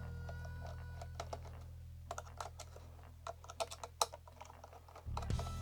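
Irregular small clicks and taps of hand work on a plastic robot: a screwdriver, small screws and housing parts being handled and set down.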